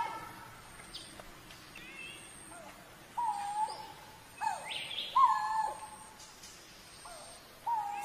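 Coral-billed ground cuckoo calling: four short, mellow notes that swoop up and then hold level, two of them close together about halfway through. Fainter, higher bird chirps sound behind them.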